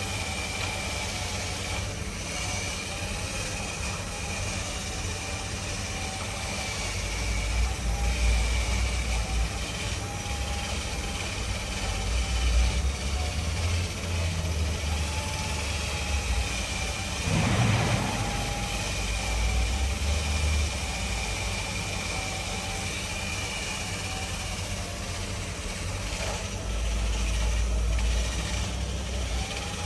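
An engine running steadily, with a whine that wavers slightly in pitch and a few spells of low rumble. Near the middle, one short louder noise is heard over it.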